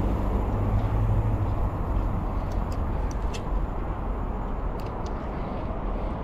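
Steady low rumble of motor traffic, its hum holding level throughout, with a few faint ticks above it.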